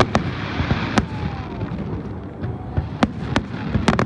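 Aerial fireworks bursting in sharp bangs over a continuous background rumble. Two bangs come at the start and one about a second in, then a quick run of bangs fires in the last second.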